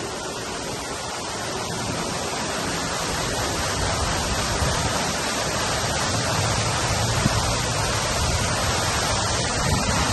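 Cooling tower running: a steady rushing noise of the belt-driven fan moving air and water falling through the fill, growing slightly louder over the first few seconds.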